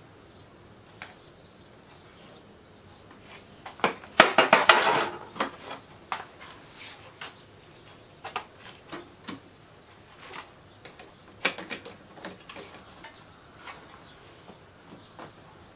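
Metal tools and the hinged lid of an electric melting furnace clinking and clattering as the crucible is tended, with a burst of rapid clatter about four seconds in and scattered single clicks after.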